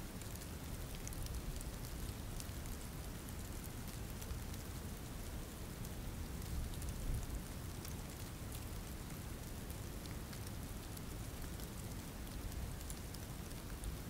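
Steady rainfall: an even hiss, with many separate drops ticking and a brief louder moment about halfway through.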